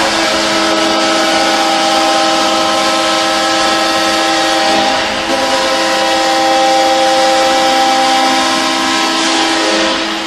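Ice hockey goal horn blowing one long, loud, unbroken blast, a chord of several steady tones, the signal that the home team has scored.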